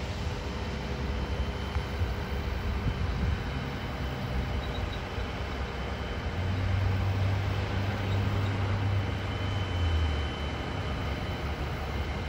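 Diesel engine of a John Deere motor grader running as it works dirt, a low steady drone that grows louder for a few seconds past the middle, with passing road traffic mixed in.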